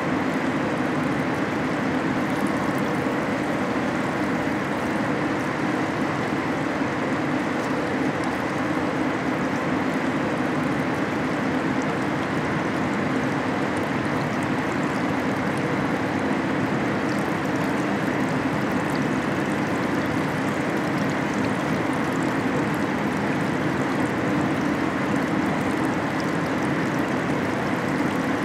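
Steady rushing and trickling of liquid in a car-body dip tank as a body shell is dipped through the bath, with a steady low hum of the plant underneath.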